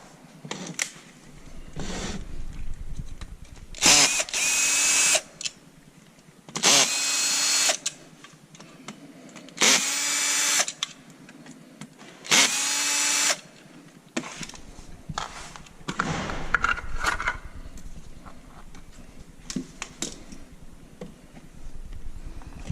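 Power drill running in four short bursts of about a second each, a pitched whine with each run, with handling clatter and light knocks between the bursts.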